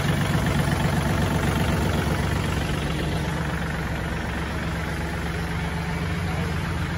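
John Deere 3036E tractor's three-cylinder diesel engine idling steadily, a little fainter after about three seconds.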